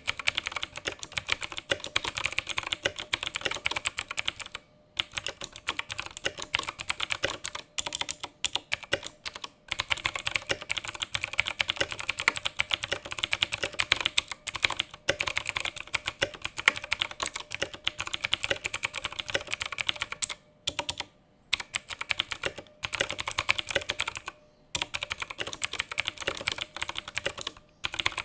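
Typing on a Koodo Cavalier mechanical keyboard with Outemu Blue clicky switches: fast, dense key clicks in runs broken by several short pauses.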